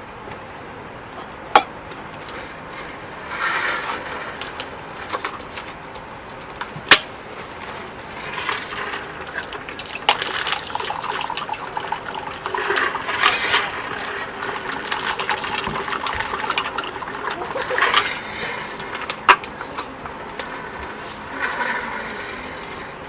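Water running or pouring in several spells, the longest lasting several seconds, with a few sharp clicks or knocks in between.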